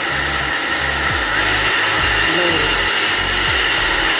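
One-step hot air brush (hair dryer brush) running, its fan blowing a loud, steady hiss with a high whine.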